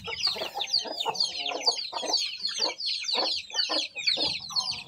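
A flock of Aseel chickens clucking as they feed, over a dense stream of short, high chirps.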